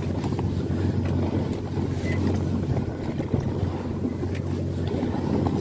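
A fishing boat's engine running with a steady low hum, under wind and sea-water noise.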